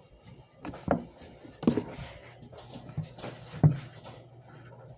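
Several sharp knocks and taps of a utensil or measuring cup against a mixing bowl as flour is added to the dough. A faint low hum sets in about three seconds in.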